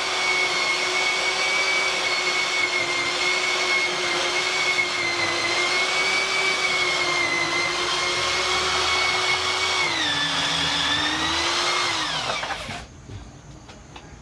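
Electric drill running steadily while cutting a vent-pipe hole through the house wall, its motor whine holding one pitch. About ten seconds in it drops in pitch under load, then it winds down and stops.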